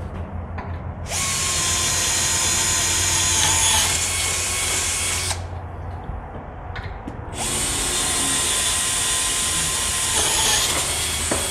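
Electric drill boring bolt holes through a UHMW polyethylene plow cutting edge: two runs of about four seconds each with a steady whine, and a short pause between them.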